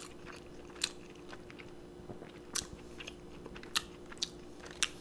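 Close-miked chewing of a mouthful of burger: about five sharp, wet mouth clicks and smacks, spaced irregularly, over a faint steady hum.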